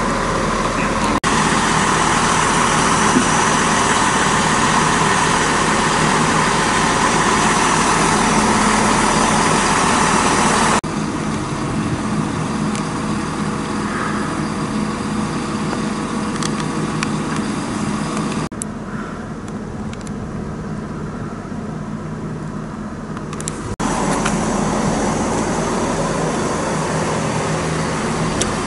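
ScotRail Class 170 Turbostar diesel multiple unit standing with its underfloor diesel engines idling steadily. The sound jumps abruptly in level and tone a few times.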